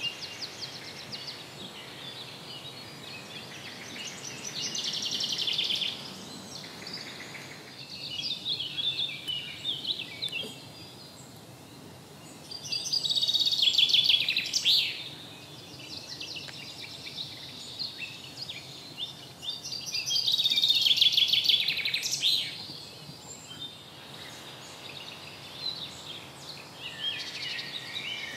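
Songbirds singing: four loud trilled phrases of about two seconds each, several seconds apart, with softer chirps between them over a faint steady outdoor background.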